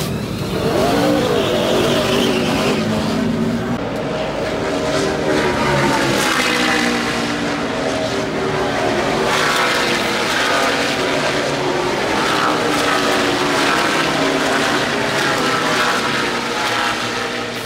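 NASCAR Cup Series stock cars' V8 engines running at speed, several overlapping, each dropping in pitch as it goes past.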